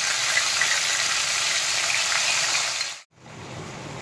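Marinated chicken pieces sizzling in hot mustard oil, a loud steady frying hiss that cuts off suddenly about three seconds in. After it comes a quieter, lower simmer of the chicken cooking in its own juices.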